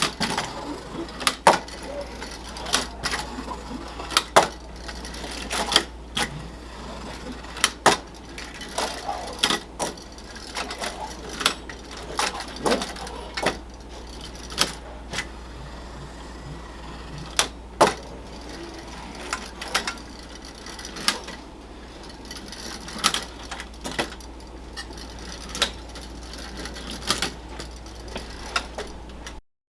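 Marx Charlie McCarthy wind-up tin litho toy car running under its clockwork spring: a steady tinny rattle with sharp clacks about every second and a half. It stops suddenly near the end.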